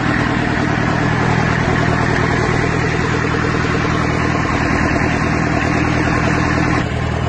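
Old tractor engine running steadily at a constant speed.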